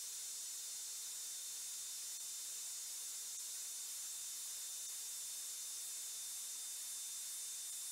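CNC vertical milling machine running an end mill through a steel block: a steady hiss with a thin, high, constant whine, and a fainter low hum that stops shortly before the end.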